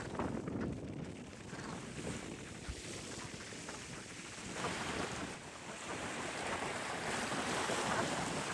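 Waves washing on the shore, with wind noise on the microphone; the surf noise swells about halfway through and stays louder.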